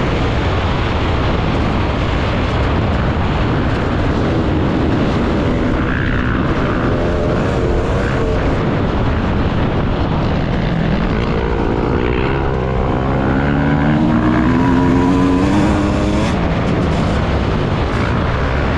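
Off-road racing engines revving as machines race through the sand. Pitch climbs about twelve seconds in, and the sound is loudest a couple of seconds later.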